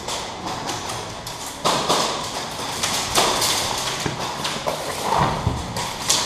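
An irregular string of sharp taps, clicks and knocks with scuffing noise in between, and a heavier thump a little after five seconds in.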